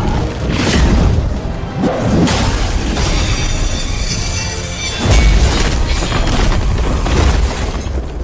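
Dramatic film score with heavy booming impact effects hitting several times over it, the loudest about five seconds in.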